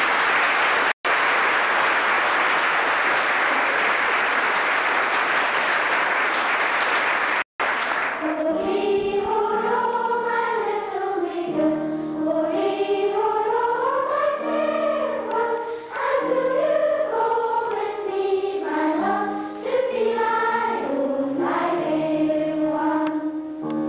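Applause for several seconds, broken by two brief dropouts in the recording. Then a choir of schoolgirls begins singing, conducted, and carries on to the end.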